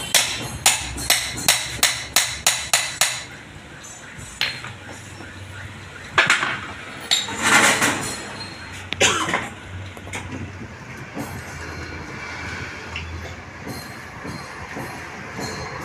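Steel hammer striking a propeller-shaft universal-joint cross on a steel block: about ten quick, sharp metal blows in the first three seconds. Scattered metal clinks and scrapes follow as the joint is worked into the shaft's yoke.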